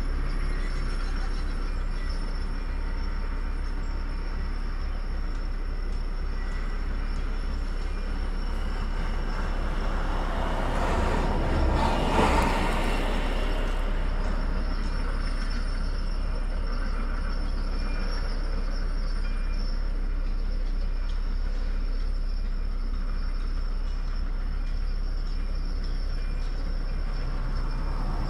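Steady outdoor background noise with a constant low rumble. A vehicle passes, swelling to the loudest point about twelve seconds in and fading away over a few seconds.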